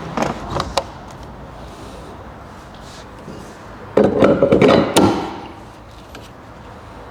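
A few sharp clicks, then about four seconds in a loud clattering rattle lasting about a second: a detachable swan-neck towbar being tested by hand.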